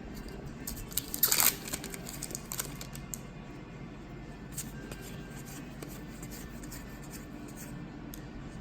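Foil wrapper of a Magic: The Gathering Throne of Eldraine Collector Booster pack crinkling and tearing as it is opened, loudest about a second in, then quieter rustling.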